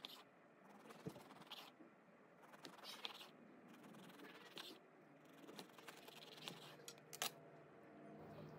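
Faint strokes of a serrated bread knife sawing through a loaf of banana bread on a wooden cutting board, with a sharper tap about seven seconds in.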